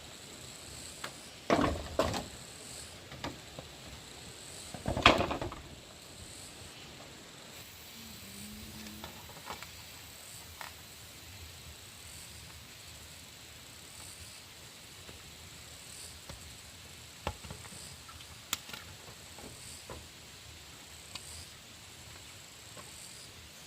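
A few short clattering knocks and scrapes, the loudest in the first five seconds, then scattered small clicks, over a faint high insect chirp that repeats about once a second.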